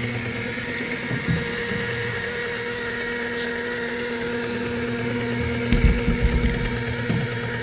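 A motor running steadily with a constant hum, with a few low thumps about six seconds in.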